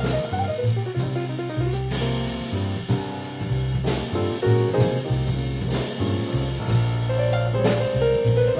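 Small jazz group (a quintet) playing an instrumental tune: drum kit with regular cymbal strokes, piano, and low bass notes moving underneath a melody line. A melody note is held near the end.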